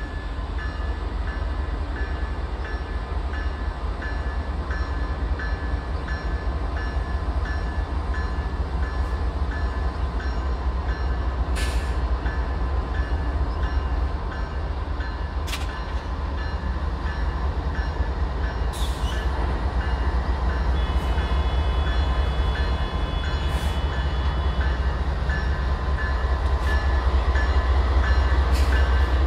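CN General Electric C44-9W diesel locomotives running low and steady as the consist rolls slowly past, growing louder as the lead unit draws near, with an evenly repeating ding about twice a second from the locomotive bell. A brief high squeal about three quarters of the way through.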